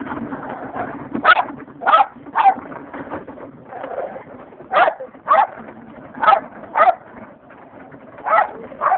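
Small dog barking in short sharp yaps, about nine in all, mostly in pairs.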